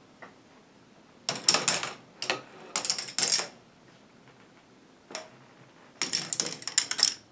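Plastic K'nex balls clattering through the plastic track and wheel elements of a running K'nex ball machine: several bursts of rapid clicks and rattles with quieter gaps between.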